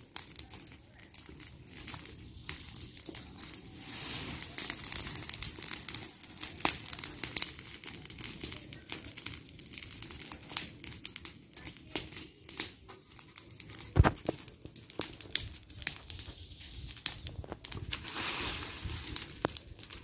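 Brush fire of dry branches and leaves crackling steadily with many small pops, and one louder knock about fourteen seconds in.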